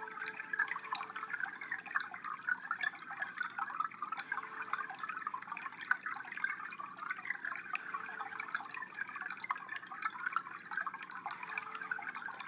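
Aquarium water trickling and bubbling steadily, a dense stream of small drips and splashes.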